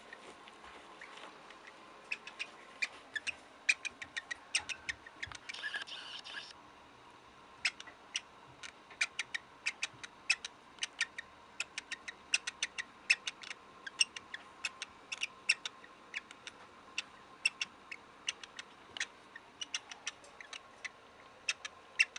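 Cockatiel making short, creaky, quack-like squeaks in a long irregular series, about two to four a second, with a short pause about a third of the way through.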